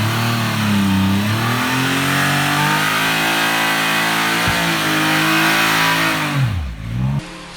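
Triumph Rocket 3 R's 2,500 cc three-cylinder engine revving. The pitch dips and climbs several times, then drops steeply and cuts off near the end.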